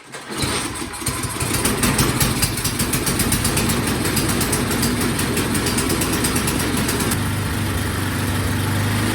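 Craftsman snowblower engine running badly, hunting between high and low speed: it is out of tune, with its carburetor needing to be cleaned and set. The pitch of the engine shifts about seven seconds in.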